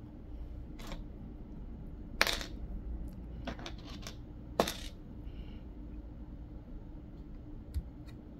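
Plastic Lego pieces clicking as they are handled and pressed together: a handful of short sharp clicks, the loudest about two seconds in and again just before five seconds, over a steady low hum.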